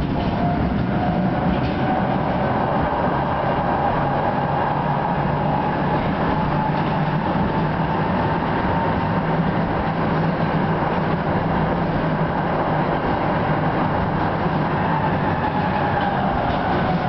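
Tatra T5C5 tram riding, heard from inside the passenger car: a steady rumble of the running gear on the rails, with a whine that climbs slightly and then falls near the end.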